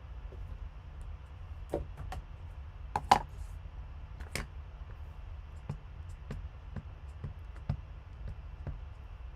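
Light clicks and knocks of rubber-stamping a greeting: the stamp is handled, tapped on an ink pad and pressed onto cardstock. The knocks come at uneven spacing, the loudest a quick double knock about three seconds in.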